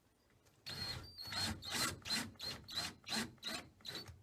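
A wood screw being turned clockwise by hand into a door hinge, scraping and squeaking in short strokes about three times a second as it tightens into the wood. The strokes begin about a second in.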